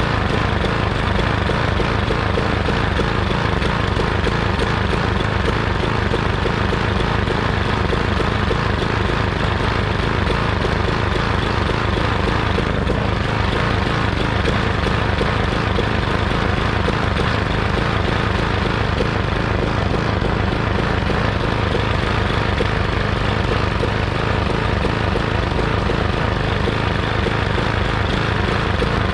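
Old walk-behind lawn mower's single-cylinder engine running steadily at a constant speed, its crankshaft bent from running over an obstacle.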